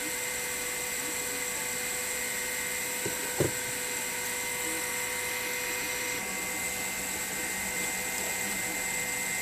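Steady whir of a small motor with a faint high whine, and two light clicks just after three seconds in.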